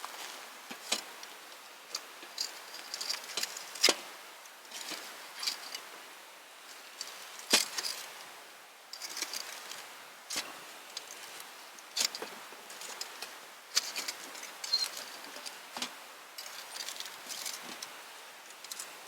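Wood campfire crackling, with irregular sharp pops over a soft hiss; the loudest pops come about four and seven and a half seconds in.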